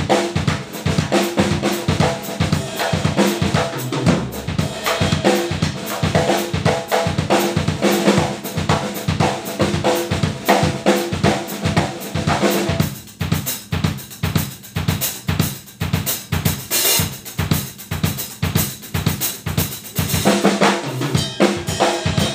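Drum kit played through newly set-up drum mics: a busy groove of kick drum, snare and cymbals over a steady pulse. About two thirds of the way through it thins out to mostly kick and cymbals, then comes back to the full kit near the end.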